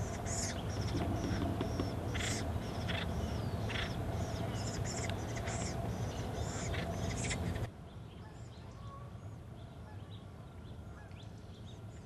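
Acorn woodpeckers giving short raucous calls over and over above a steady low rumble. About eight seconds in, the rumble and the louder calls cut off abruptly, leaving only faint calls.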